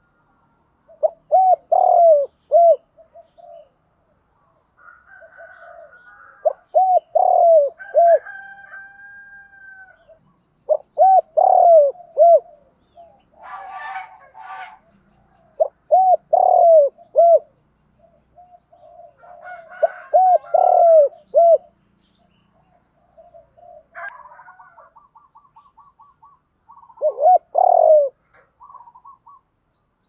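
Spotted dove cooing its call phrase over and over: about six phrases, each a few quick notes falling in pitch, with gaps of several seconds between them. Fainter calls of other birds come in between the phrases.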